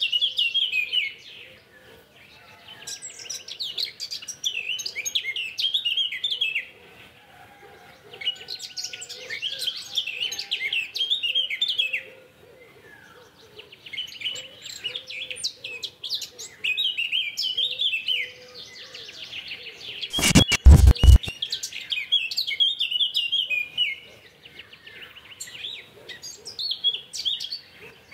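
Birds chirping in busy bursts of a few seconds each, over a faint steady hum. A cluster of loud knocks comes about two-thirds of the way through.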